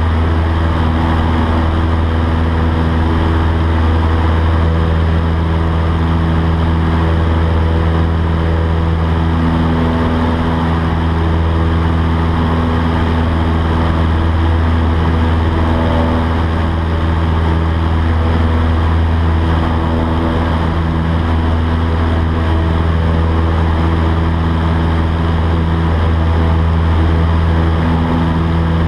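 Cabin noise of a Cessna 152 in flight: its four-cylinder Lycoming engine and propeller running steadily through the climb-out after takeoff, a deep, even drone with a rushing hiss over it.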